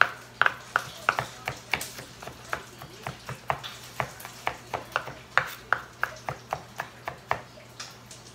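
Kitchen knife chopping garlic on a bamboo cutting board: a steady run of sharp blade strikes on the wood, about three to four a second, that stops shortly before the end.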